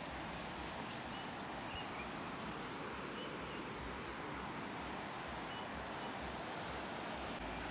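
Steady rushing of river rapids, with a few faint, short, high chirps now and then.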